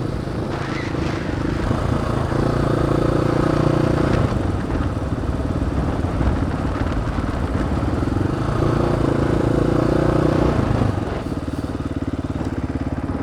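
Dirt bike engine running while riding, its note shifting up and down a few times with the throttle.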